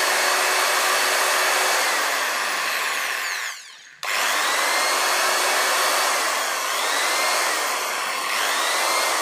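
A Buildskill BED1100 300-watt corded electric drill running free with a bit in the chuck, no load. It is released about three and a half seconds in and winds down with falling pitch, then is triggered again at about four seconds. Later its speed dips and picks up twice.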